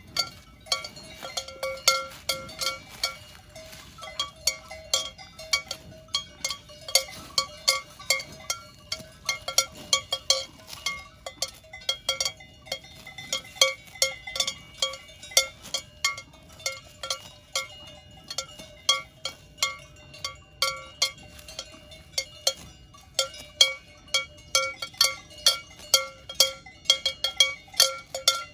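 Swiss cowbells on grazing cows clanking in an uneven run, a few strikes a second. Bells of different pitches ring over one another as the cows move.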